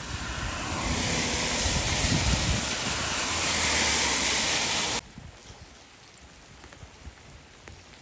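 Tyres hissing on a rain-soaked road as a vehicle passes, swelling and then cutting off suddenly about five seconds in. Steady rain pattering follows.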